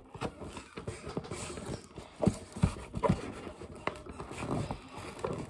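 Scissors cutting into a cardboard shipping box and its packing tape: a string of irregular snips and clicks with light scraping between them.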